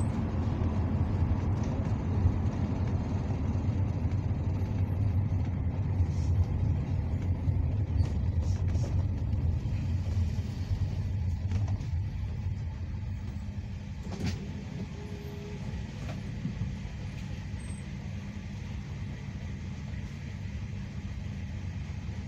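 NefAZ city bus heard from inside the cabin: a low rumble of engine and road noise while it drives. About halfway through it dies down to a quieter steady engine hum as the bus slows in traffic, with a single sharp click a little after that.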